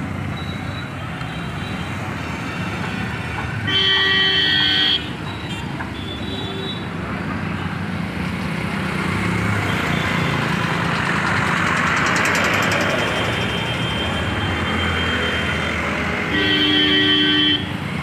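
Road traffic with two long vehicle horn blasts, one about four seconds in and one near the end, each over a second long. In between, the traffic noise swells and fades as a goods truck passes close by.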